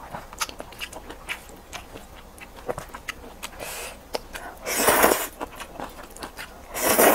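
A person chewing with small wet mouth clicks, then loudly slurping curly instant noodles twice: once about five seconds in and again at the very end.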